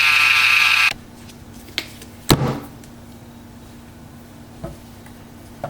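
Electric can opener running with a steady whine that stops abruptly about a second in, followed by a few sharp clunks and knocks as the opened can of beans is handled, one much louder than the rest.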